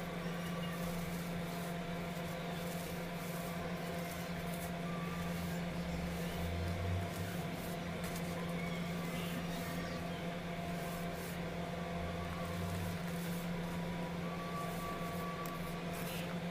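A steady low hum runs throughout. Over it come faint, soft crunches of fingers crumbling and pressing into a heap of baking soda powder.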